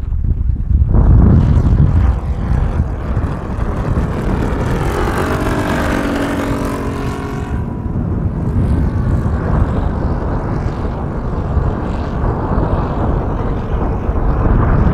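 Homemade 220 cc four-stroke V4 engine turning a three-blade propeller on a large radio-controlled model plane in flight. Its note is clearest for a few seconds about halfway through, with the pitch bending as it passes. Heavy wind noise on the microphone runs underneath.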